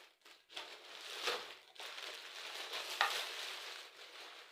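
Plastic packaging rustling and crinkling as a speaker accessory is unwrapped, a continuous crackly rustle with a few sharper crinkles.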